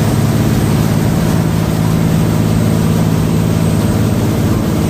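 Jet boat's engine running steadily under way, a constant low drone with a steady rushing noise over it.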